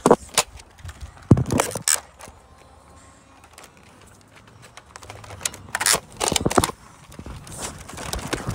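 Hard plastic clicks and clacks from an X-Shot toy foam-dart blaster being handled and worked close to the microphone. They come in bunches: several sharp ones in the first two seconds, a quieter stretch, then a few more about six seconds in.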